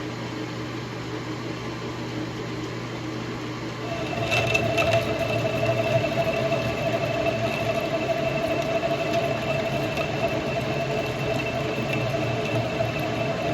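Metal lathe running with a steady motor hum; about four seconds in, the carbide triangle insert bites into the stainless steel shaft and a steady high-pitched whine from the cut rises over the hum and carries on.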